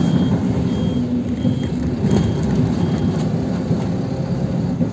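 City bus running and pulling away, a steady low engine rumble heard from inside the passenger cabin. A faint short electronic beep repeats roughly three times every two seconds, then stops about three and a half seconds in.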